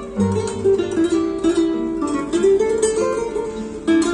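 Recorded music with a plucked-string melody, played through hi-fi floor-standing loudspeakers driven by a vintage amplifier.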